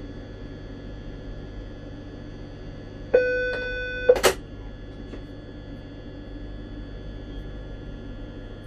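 Steady low hum of a Regio 2N train cab, broken about three seconds in by a loud one-second electronic beep, then a sharp click just after it.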